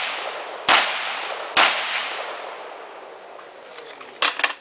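Two gunshots about a second apart, each followed by a long echoing decay. Near the end comes a quick rattle of quieter sharp clicks.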